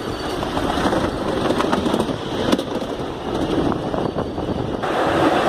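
Miniature ride-on steam train running along its narrow-gauge track, heard from aboard a passenger car: a steady rumble and rattle of wheels on rail with a few sharp clicks.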